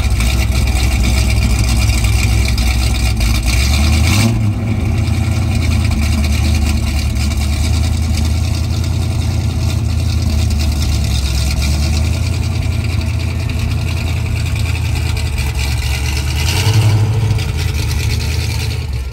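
Pontiac Trans Am's V8 idling through its exhaust with a steady low note, given a quick rev about four seconds in and another near the end.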